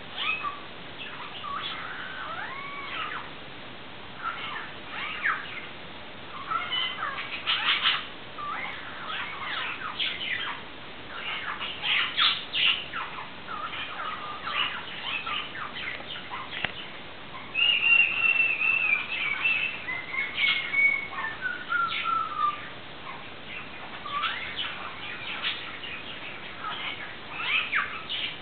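Cockatiel calling again and again: short sharp chirps and squawks mixed with whistles, including a long wavering whistle about two-thirds of the way in and a falling whistle soon after.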